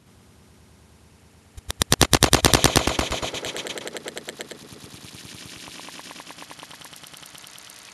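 A shot from a lever-action mare's leg striking a water-filled plastic jug, heard at the target. It comes as a rapid stuttering rattle of sharp cracks about a second and a half in, loudest for about a second, then tailing off in weaker pulses over several seconds as the water sprays out.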